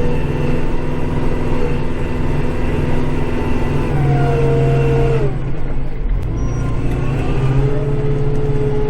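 Kubota tractor's diesel engine running under load, heard from inside the cab, with a steady whine. The pitch rises a little about four seconds in, drops sharply just after five seconds, then settles into a steady tone again.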